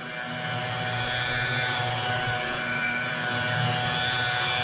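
Electric car buffer with a foam pad running at a steady speed on the paint, a constant motor whine, polishing off haze.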